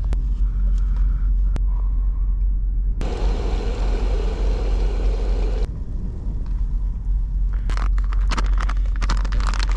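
A low rumble runs throughout. About three seconds in, a backpacking gas stove's burner hisses under a steaming pot for a few seconds, then cuts off suddenly. Near the end a foil freeze-dried food pouch crinkles as it is handled.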